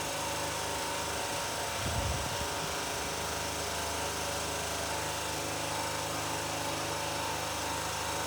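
Steady mechanical hum with an even hiss, with a faint low rumble about two seconds in.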